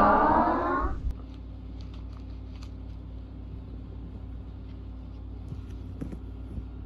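A voice-like pitched sound fades out in the first second. Then a steady low hum runs on, with a few faint clicks.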